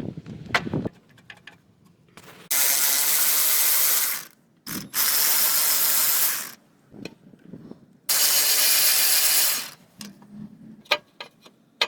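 Power ratchet spinning out the 14 mm bolt on an exhaust pipe bracket, running in three bursts of about a second and a half each, with light clicks of the tool and bolt between and after.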